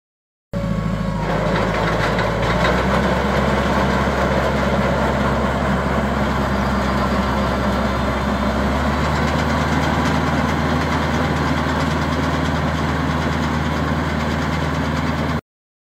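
Tractor engine running steadily as it drives a Verti-Core hollow-tine aerator across turf, punching and pulling soil cores. The sound cuts off suddenly just before the end.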